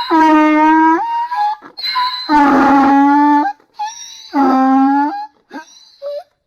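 Donkey braying: a repeated hee-haw that swings between a high note and a loud lower note, three low notes in all, tailing off into short gasping breaths near the end.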